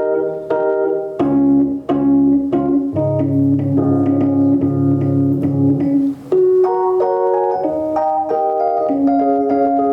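Keyboard playing an instrumental passage of struck chords and melody notes, with a low bass line under the chords for a few seconds in the middle.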